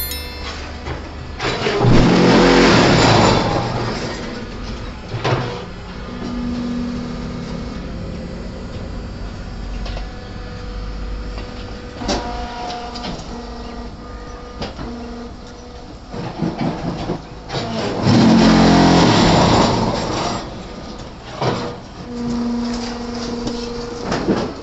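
Automatic hydraulic cement brick-making machine running, with a steady hum and a few sharp knocks, and two loud stretches of two to three seconds each, about sixteen seconds apart.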